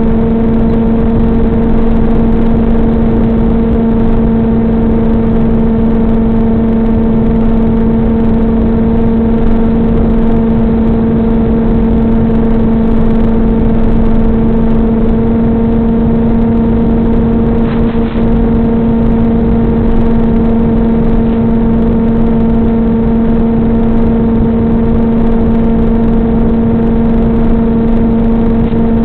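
Electric motor and propeller of an RC plane running at a steady cruise throttle, heard from on board as one unchanging drone over a rush of air.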